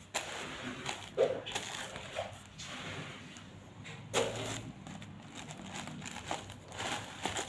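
Handling noise from a parcel being unpacked: irregular clicks, knocks and short rustles of packaging.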